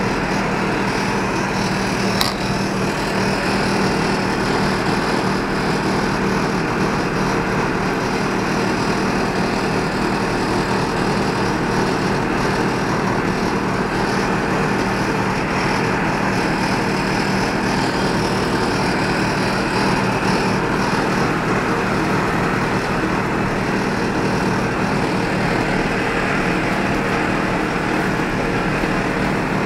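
Tractor engine running steadily at a constant speed, turning the orchard sprayer's pump through the PTO shaft to stir the spray mix in the tank. A single short click about two seconds in.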